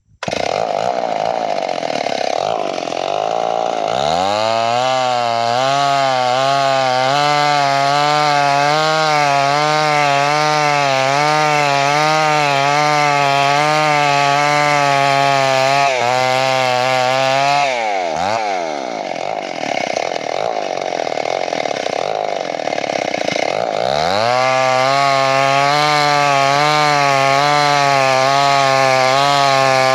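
A two-stroke chainsaw ripping lengthwise through a log to square it into a beam, its engine pitch wavering steadily under load. About two-thirds of the way through, the pitch drops sharply and climbs back before the saw settles into the cut again.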